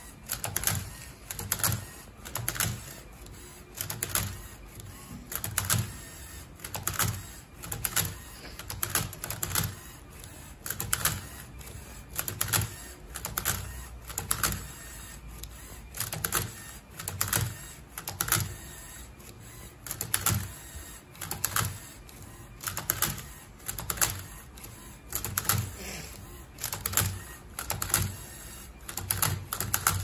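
LEGO Mindstorms Robot Inventor cube-solving robot working a Rubik's Cube: its motors whir and its plastic arms and cube clack in short bursts about once a second as the cube is flipped and twisted face by face during the solve.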